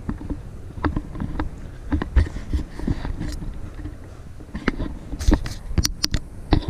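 Handling noise from a handheld camera carried by someone walking: irregular knocks and thumps over a low rumble, with a few sharp clicks near the end.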